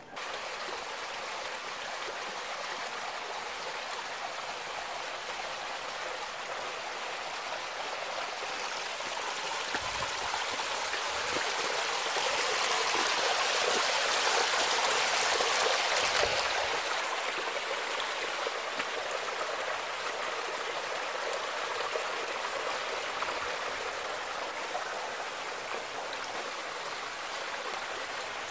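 Running water, a steady rushing that grows louder toward the middle and eases off again.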